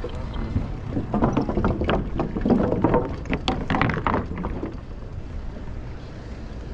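Riding noise on a bike-mounted action-camera microphone: a steady low rumble of wind and road noise. A run of sharp clattering knocks fills the first four and a half seconds, then dies away, leaving only the rumble.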